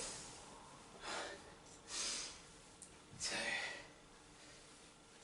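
A man breathing hard from exertion mid-workout: two heavy breaths about a second apart, then a spoken count of 'two'.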